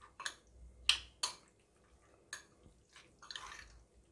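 A metal spoon stirring raw chicken pieces in a wet marinade in a glass bowl: a few irregular sharp clicks of spoon against glass and wet squelching, with a short scrape near the end.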